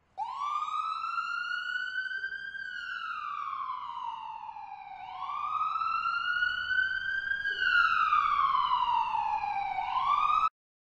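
Emergency vehicle siren wailing, its pitch slowly rising and falling about every five seconds, two full cycles, then cut off suddenly in the middle of a third rise.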